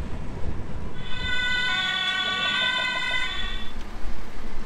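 A steady high-pitched squeal of several tones at once, starting about a second in and lasting nearly three seconds, over the rumble of street traffic.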